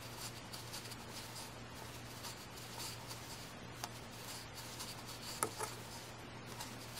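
Faint scratchy rustling of a metal crochet hook drawing cotton yarn through stitches, with small ticks and a couple of sharper clicks, the loudest about five and a half seconds in.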